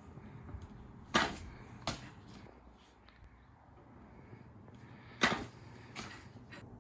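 Two pitched baseballs striking their target with a sharp smack, each followed by a lighter knock about 0.7 s later.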